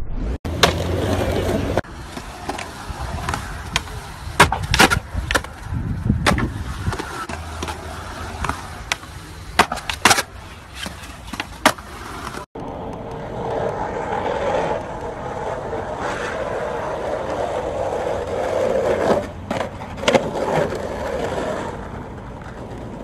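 Skateboards rolling on concrete, with repeated sharp clacks of the boards striking the ground as tricks are popped and landed.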